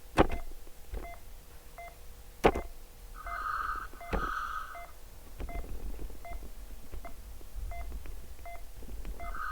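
Mechanical ventilator alarm beeping in pairs, one pair near the middle and another starting at the end, with faint short ticks between them and two sharp clicks early on. It is the alarm for high peak airway pressure, set off by raised airway resistance.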